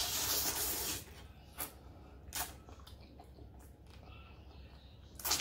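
A person slurping up a mouthful of spicy noodles for about a second, then chewing, with a few short mouth clicks and smacks, the last one louder near the end.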